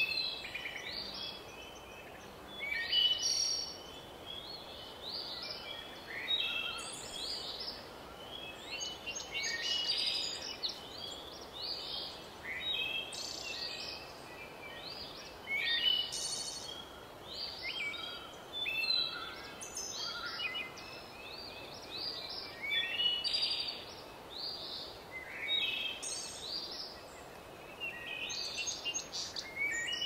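Songbirds singing outdoors, a steady run of short chirps and trilled phrases every second or so, over a faint steady background hiss.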